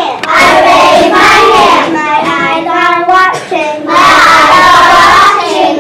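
Children's call-and-response chant of classroom rules: a lone child's voice gives a line and the whole class echoes it in unison, twice.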